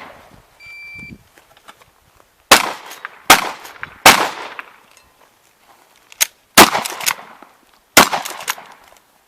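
Shotgun fire on a practical shooting stage: a short electronic shot-timer start beep, then five loud shots with echo, three in quick succession about a second apart, a pause, and two more spaced more widely.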